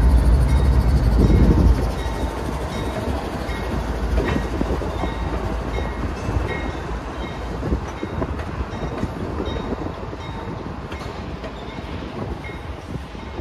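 Freight train's diesel locomotives passing close below, their engines giving a loud low rumble that drops off sharply after about two seconds. A steadier, quieter rumble of the following units and of wheels on the rails then runs on as the locomotive consist gives way to gondola cars.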